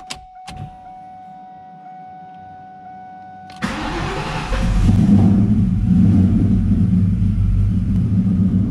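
A faint steady whine with the key on, then, about three and a half seconds in, the starter cranks and the Whipple-supercharged 4.6-litre DOHC V8 of a 2003 Mustang SVT Cobra fires from cold. It catches within about a second and settles into a loud, steady idle.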